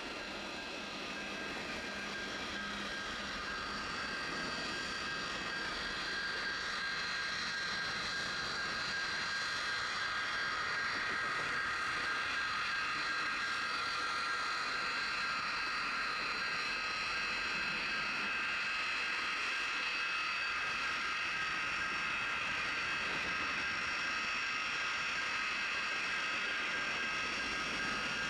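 Steady high whine of a railroad jet-engine snowblower, growing slowly louder over the first several seconds, mixed with the rolling noise of freight cars passing.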